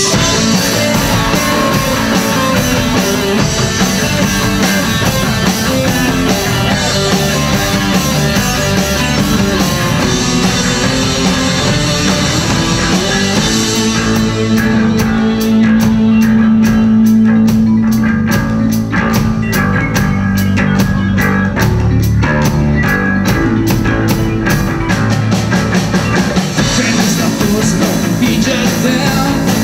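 Rock band playing live at full volume: electric guitars and a drum kit. About halfway through, the cymbal wash drops away, leaving a fast, chopped rhythm and a long held low note, and the full band comes back in near the end.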